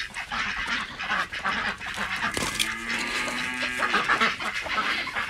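A flock of ducks quacking, many short overlapping calls at once as they crowd toward food.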